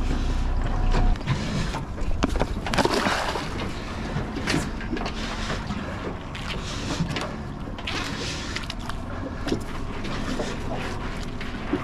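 Boat engine running low, with wind and water noise; a heavy low rumble cuts back sharply about a second in, followed by a few brief rushing noises.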